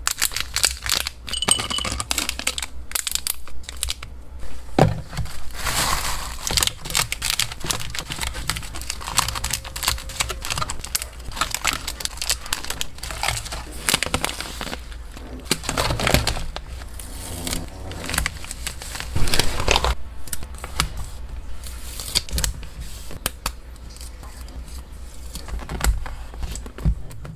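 Plastic snack bags and a foil pouch crinkling and rustling as hands handle and pack them, with many small irregular clicks and taps.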